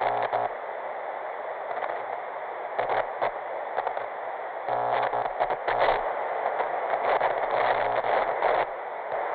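Dead-channel TV static sound effect: a steady crackling hiss, with a low buzz that cuts in and out several times.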